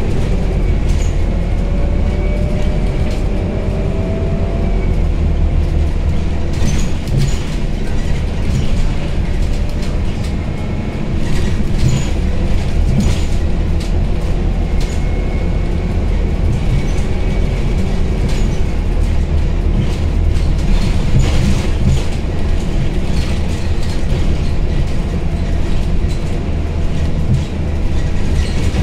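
Inside a Scania Citywide 12LF CNG city bus under way: a steady low rumble from its Scania OC09 five-cylinder natural-gas engine mixed with road noise. There is a faint whine rising in pitch in the first few seconds. From about seven seconds in, light clicks and rattles come from the cabin fittings.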